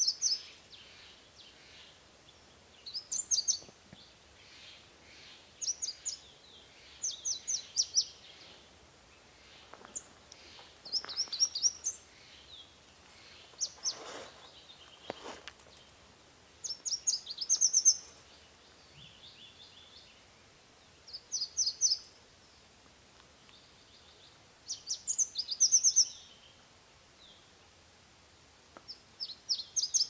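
Red warbler singing: short, rapid phrases of high, sharp notes, repeated every two to four seconds. A brief rustling noise about halfway through.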